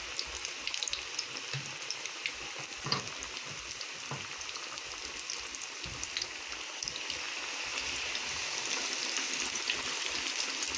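Flour-coated chicken deep-frying in hot oil in a pan: a steady sizzle with many small crackles and pops, growing louder in the second half as a second piece goes into the oil.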